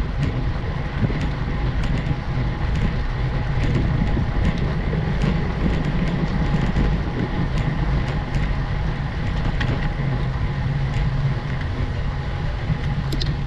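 Steady low rumbling noise of a road bike being ridden uphill: tyres rolling on tarmac and wind on the microphone, with faint scattered ticks.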